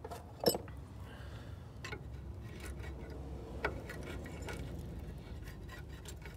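Scattered metallic clinks and taps of a hand tool working on a car's rusty front brake caliper and steering knuckle. The sharpest comes about half a second in, with others near two seconds and a little past three and a half, over a low background rumble.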